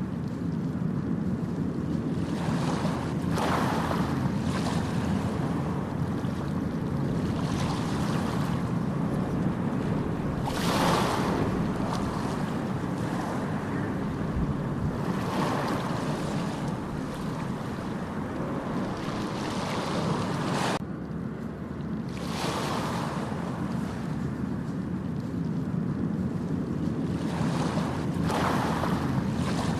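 Ocean waves breaking and washing up a beach, a surge of hiss every four to five seconds, over a steady low rumble of wind on the microphone.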